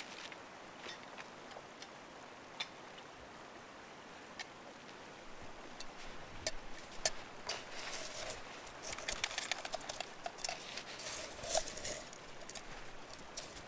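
Snow crunching under boots and in the hands. A few scattered small clicks and taps come first, then a dense run of crisp crunches from about halfway through.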